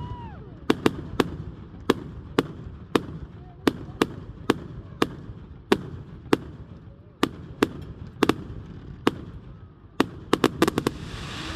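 Fireworks going off: a steady string of sharp bangs about two a second, with a quicker cluster of cracks around ten seconds in.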